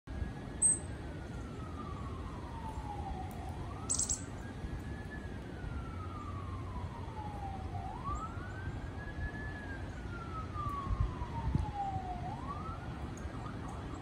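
Distant emergency-vehicle siren in a slow wail, each cycle rising quickly, then sliding slowly down over about four seconds, three times over. Two brief high bird chirps come near the start and about four seconds in.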